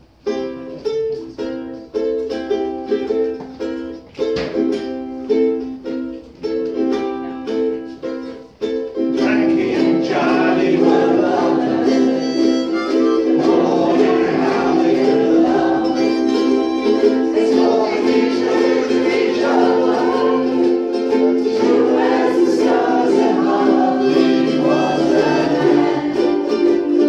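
A single ukulele strums the song's intro riff in separate chords with short gaps. About nine seconds in, the whole ukulele group joins in, and the strumming becomes fuller and louder.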